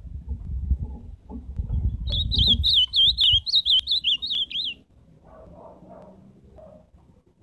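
Ultramarine grosbeak (azulão) singing one rapid warbling phrase of quick up-and-down notes, starting about two seconds in and lasting under three seconds, over a low rumble that dies away as the song ends.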